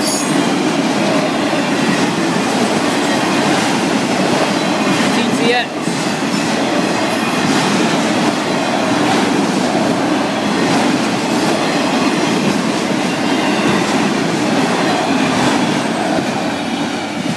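Florida East Coast Railway freight train's cars rolling past at speed close by: a loud, steady rush of steel wheels on rail.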